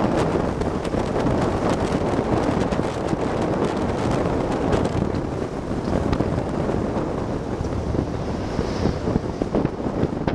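Wind buffeting the microphone over the steady rush of a moving car, with gusty crackles throughout.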